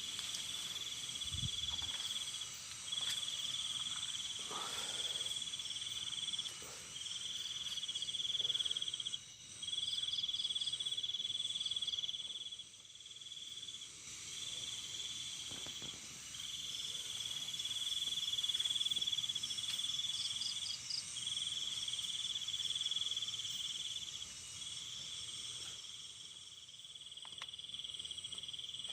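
A chorus of insects chirping: a loud, steady trill that breaks off briefly every few seconds, over a higher continuous whir, with short quick chirp groups now and then.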